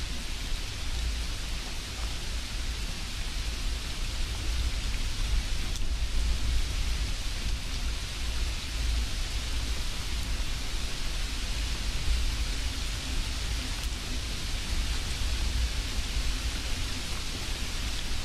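Steady hissing noise with a low rumble underneath, unchanging throughout.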